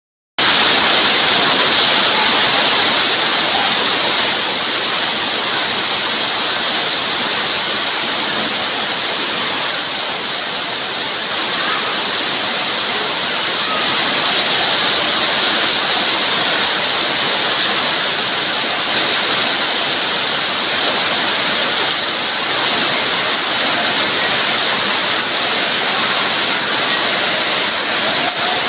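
Heavy rain pouring down steadily, a dense, even hiss. The sound drops out for a split second at the very start, then runs on unchanged.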